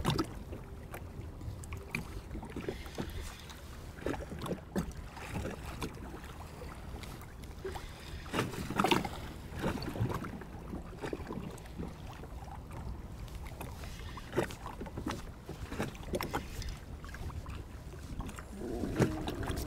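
Steady wind noise on the microphone and choppy water slapping against a plastic fishing kayak's hull, with scattered short knocks and splashes; the slapping grows louder about nine seconds in and again near the end.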